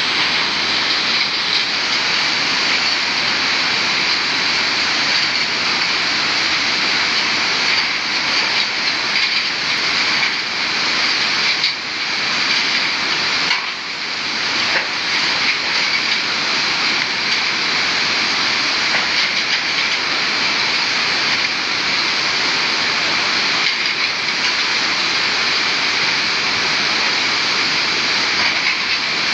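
Swollen river rushing past a bridge: a steady, loud noise of fast floodwater, the river in spate after Tropical Storm Agatha.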